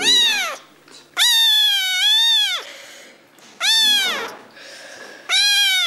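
Kitten meowing four times, high-pitched, the second call long and drawn out, each call dropping in pitch at its end.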